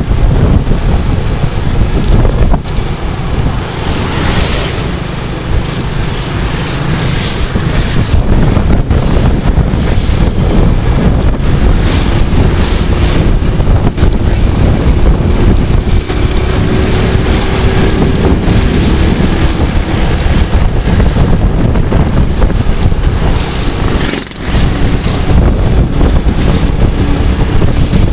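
Loud wind rushing and buffeting over the microphone, mixed with engine and tyre noise from a vehicle travelling along a road.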